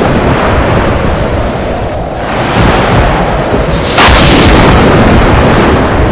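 Sea waves breaking on a shore, with heavy wind buffeting the microphone; a wave crashes suddenly about four seconds in.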